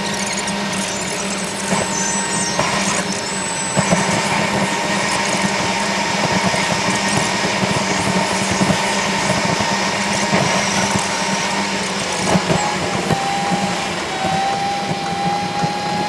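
A vehicle running with steady engine and road noise, and a thin whine that comes in about twelve seconds in.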